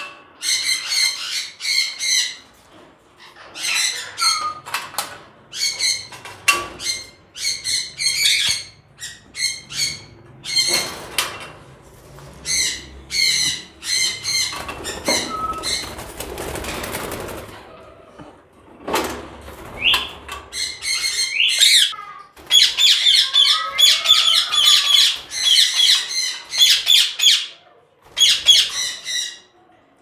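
Caged parrots giving repeated short, harsh squawks, many in quick series, with a stretch of noisy rustle near the middle.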